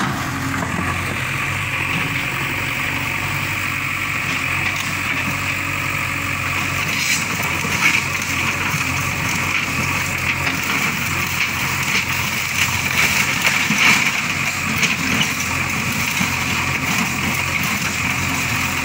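JCB backhoe loader's diesel engine running steadily as its arm knocks down a building, with a few sharp crashes of breaking rubble, the loudest about eight seconds in and again around thirteen to fourteen seconds.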